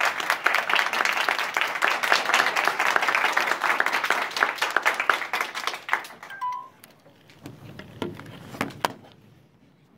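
A small audience clapping: dense applause that thins out and dies away about six and a half seconds in, followed by a few scattered last claps.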